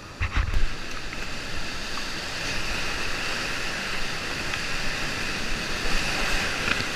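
River whitewater rushing and churning, heard close up from a kayak in the rapid, swelling slightly as the boat moves into it. A few low thumps come about half a second in.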